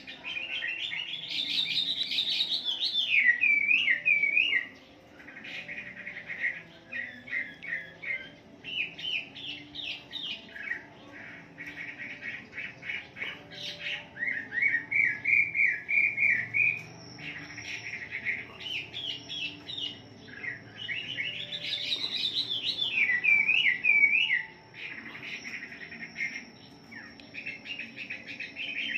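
Chinese hwamei singing a long, varied song: loud rising whistles, quick warbling phrases and runs of rapid repeated notes, following one another with only brief pauses.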